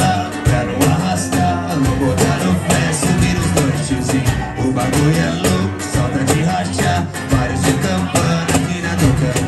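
Live acoustic band playing: a cajón beating a steady rhythm under an electric bass line and a strummed acoustic guitar, with a voice singing over them.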